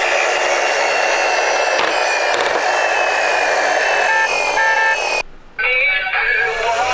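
Toy ambulance's built-in electronic sound unit playing through its small speaker: a tinny, hissy electronic tune, with on-off beeps about four seconds in and a brief dropout just after.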